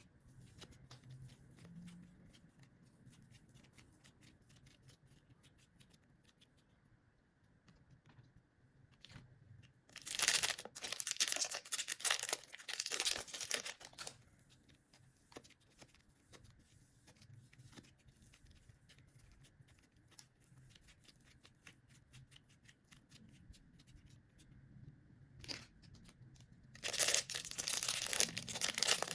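Slime being stretched and pulled apart by hand. Faint scattered sticky clicks and pops run through, with two loud crackling, tearing stretches: one of several seconds about a third of the way in, and another near the end.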